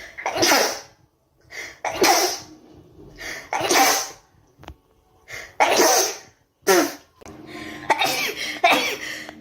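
Rapid-fire sneezing: about seven short, sharp sneezes in quick succession, some led in by a softer intake.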